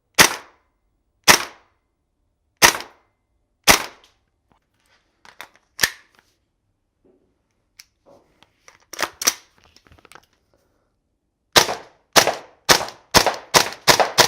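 Tokyo Marui M4 MWS gas blowback airsoft rifle firing, each shot a sharp crack as the gas-driven bolt cycles. Four single shots come about a second apart, then a few quieter shots and clicks, then a rapid string of about ten shots near the end.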